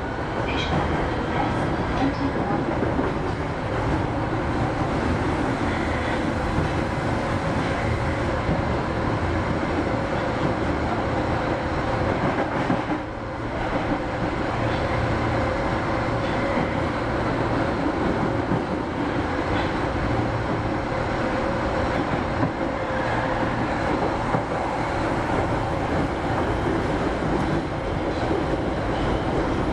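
Osaka Metro 25 series subway train running between stations, heard from inside the car: a steady rumble of wheels on rail with a faint hum, briefly quieter about thirteen seconds in.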